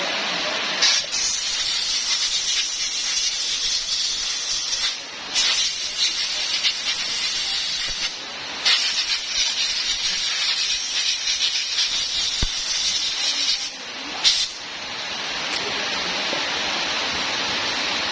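A steady, loud hissing spray that stops for a moment about four times and starts again.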